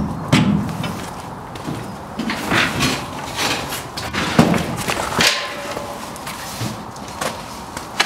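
Wooden pallets being handled and shifted, a series of irregular knocks, thumps and scrapes as they hit each other and the steel side of a shipping container.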